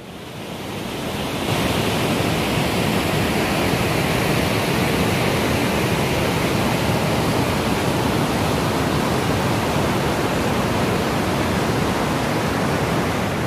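Rushing white water of a mountain waterfall tumbling over rocks: a loud, steady hiss of water. It swells up over the first second or two and begins to fade near the end.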